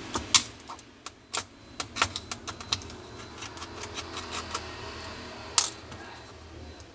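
Irregular sharp clicks and taps of tools and small parts being handled while working on an opened laptop: a quick run of them in the first three seconds, then a lull and one loud click near the end, over a steady low hum.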